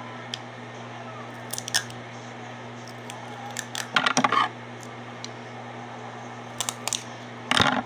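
Close handling noises of paper and tape crafting: scattered clicks, taps and rustles, loudest in a cluster about four seconds in and again near the end, over the steady hum of an electric fan.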